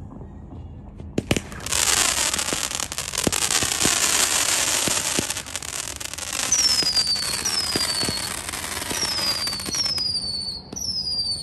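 Fireworks: a sharp bang about a second in, then dense crackling, with a series of falling whistles about once a second from six or seven seconds in.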